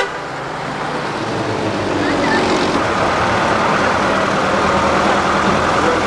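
A bus's diesel engine running as the bus drives up close, growing louder over the first two seconds and then holding steady.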